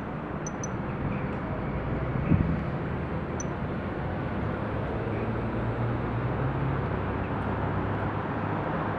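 Steady city-street traffic ambience: a low rumble and hiss of passing and idling vehicles, with a single short knock about two seconds in.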